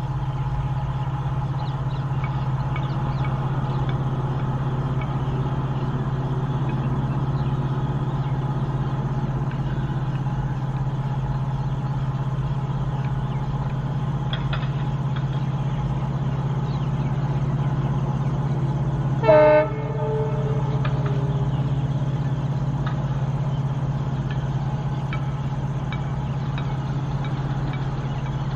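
EMD WDP-4D diesel-electric locomotive approaching with a passenger train, its engine running with a steady low drone. About two-thirds of the way through it sounds its air horn in one short blast.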